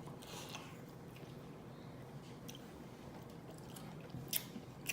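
A person quietly chewing chicken wings close to the microphone, with a few short wet mouth clicks, the sharpest two near the end.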